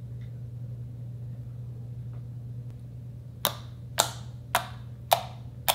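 Fingers pressing and poking into slime, giving five sharp wet pops about half a second apart in the second half, over a steady low hum.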